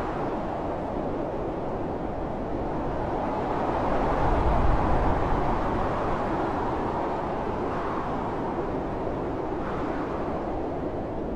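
Strong blizzard wind blowing steadily, a low rushing noise that swells for a moment about four to five seconds in.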